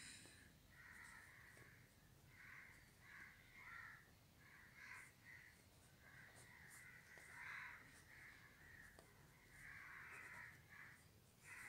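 Pencil scratching on paper in short, uneven strokes, faint and close up.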